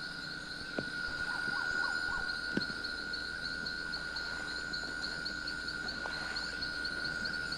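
Night chorus of insects and frogs in the woods: a steady high trilling that pulses with quick even chirps. A short run of lower rising chirps comes a little over a second in, and there are a couple of faint clicks.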